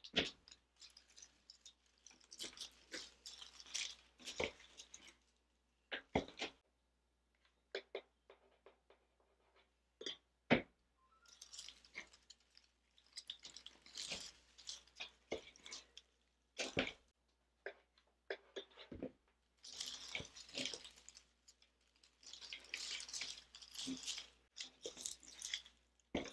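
Faux greenery stems rustling and crackling as they are worked into a grapevine wreath by hand, in several spells, with scattered sharp clicks.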